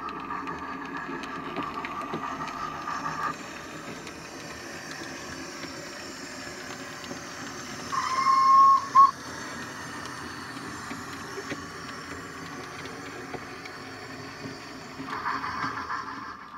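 Sound-fitted OO gauge model of an Ivatt tank steam locomotive running with its train, giving steady steam-engine sounds. A short whistle blast about eight seconds in is the loudest thing.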